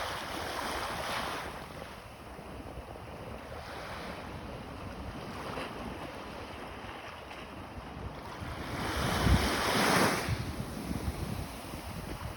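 Sea surf breaking and washing up a beach: a continuous wash with a small surge at the start and a bigger, louder wave breaking about nine seconds in.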